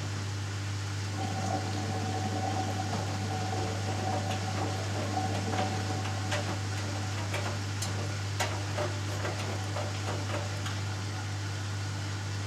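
Hoover Dynamic Next DXA610IW3 washing machine on its interim spin: a steady hum, with a motor whine from about a second in that fades near the end. Scattered clicks and water sounds come in the middle.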